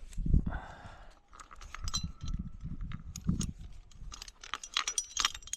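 Metal climbing gear, carabiners and quickdraws, clinking and rattling in a run of small sharp clicks, thickest near the end, over low handling bumps and a short rustle about half a second in.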